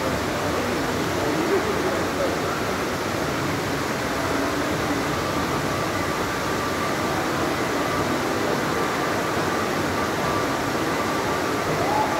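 Water streaming steadily down a tall indoor water wall, a continuous even rush of falling water.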